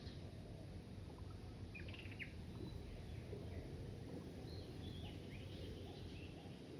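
Small birds chirping sporadically, with a quick pair of chirps about two seconds in, over a faint, steady low rumble of outdoor background noise.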